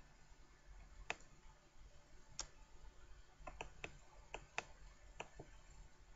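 Faint, irregular clicks, about ten of them spread over a few seconds, over quiet room tone.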